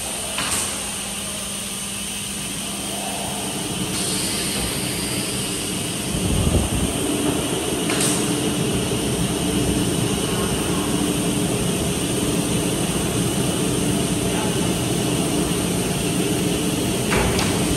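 Holztek HT-R4D four-spindle CNC nesting router running: a steady machine drone that grows louder about six seconds in, with short hisses now and then.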